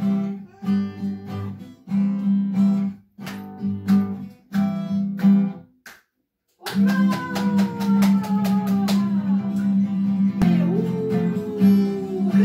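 Acoustic guitar strummed in a steady rhythm of chords; it cuts out for about half a second near the middle, then carries on.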